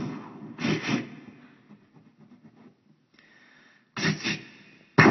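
A man imitating gunshots with his mouth: a double vocal blast about a second in that fades out, a short hiss, then another double blast near the end.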